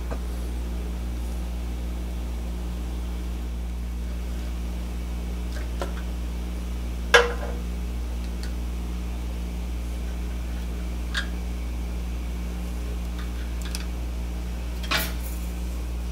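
Steady low hum under a handful of sharp knocks and clicks as parts on the lathe's carriage are handled; the loudest knock comes about seven seconds in.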